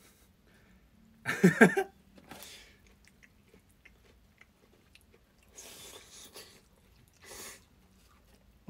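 People chewing and crunching food, with faint bites and chews heard several times. About a second and a half in there is a brief, louder vocal sound.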